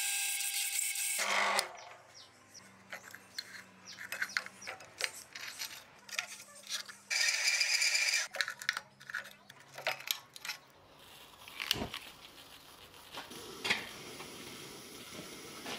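Drill press driving a hole saw through steel plate, a loud cutting noise that stops about a second and a half in and returns for about a second near the middle. Between the cuts, a low motor hum and scattered light metallic clinks and taps.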